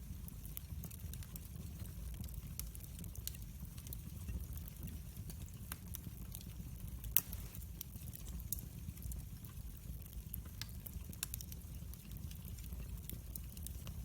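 Wood fire crackling in a fireplace: scattered sharp pops over a low steady rumble, with one louder pop about seven seconds in.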